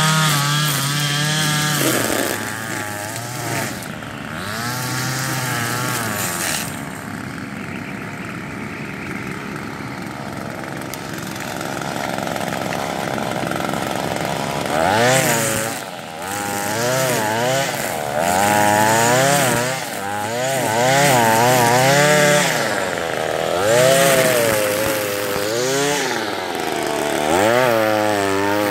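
Gas string trimmer running and cutting tall grass. It holds a steady high speed at first, settles lower for several seconds in the middle, then revs up and down repeatedly, about once a second, as the throttle is squeezed and released.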